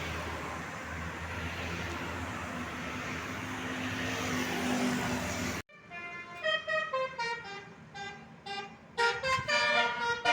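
A bus engine and road noise running steadily, then after an abrupt cut a bus's telolet horn playing a quick tune of short stepped notes, growing louder near the end.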